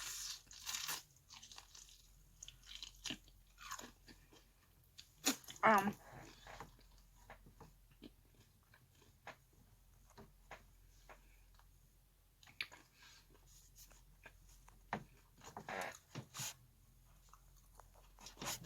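A person chewing and crunching crispy fried food close to the microphone, in irregular, short crunches.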